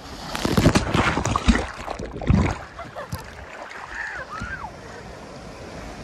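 Ocean surf breaking and water splashing as a swimmer dives through a wave. It is loud and rough for the first couple of seconds, then settles into a steadier wash of surf.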